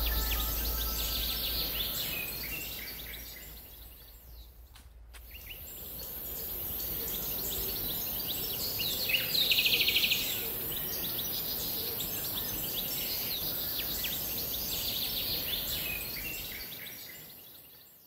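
Small birds chirping and calling in woodland, with one louder, rapid chattering call about nine seconds in, over a steady high hiss. Background music fades out in the first couple of seconds.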